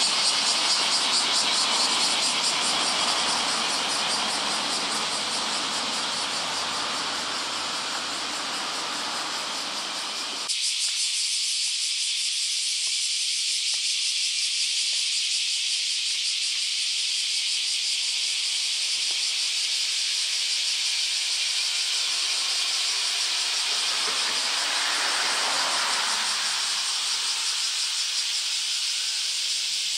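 Cicada chorus: a dense, steady high-pitched drone with a fast pulse. For the first ten seconds it lies over low street and traffic noise, which cuts off suddenly; a vehicle passes, swelling and fading, about 25 seconds in.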